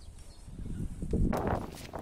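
Loose earth being tipped out and moved about: a rustling, thudding rush that is loudest about a second in, followed by a few light knocks.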